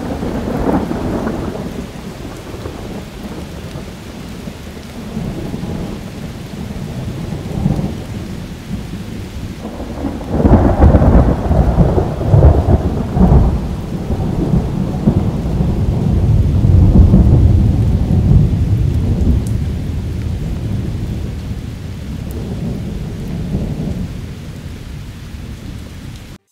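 Rolling thunder over steady rain, the rumble swelling loudest from about ten seconds in, easing off toward the end, then cutting off suddenly.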